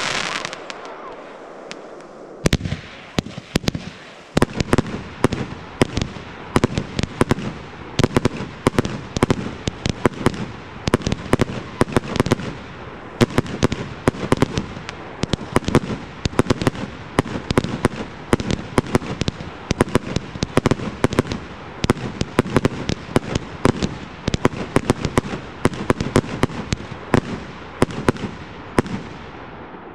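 Fireworks display: a brief hiss, then from about two seconds in a dense, continuous run of sharp bangs from bursting aerial fireworks, several a second.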